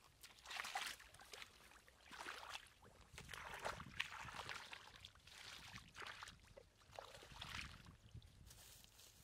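Hands sloshing and splashing through shallow muddy water, groping in the mud for catfish, in short bursts about once a second.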